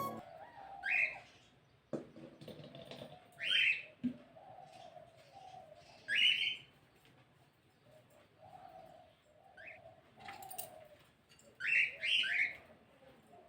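Birds calling outdoors: a loud, short call every two to three seconds, with a quick double call near the end and fainter, lower calls in between.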